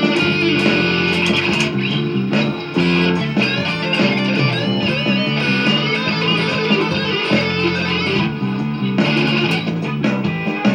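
Rock music: electric guitar with bass and drums, the guitar bending and wavering in pitch over a bass line that moves step by step.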